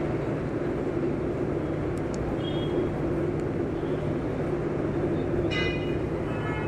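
Aerial ropeway machinery running with a steady mechanical hum. A short high-pitched sound comes in about five and a half seconds in.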